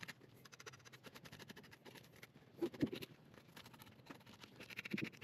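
Serrated knife scraping the scales off a snapper on a cleaning table: a quick run of short, faint scratchy strokes, with a couple of dull knocks about three seconds in.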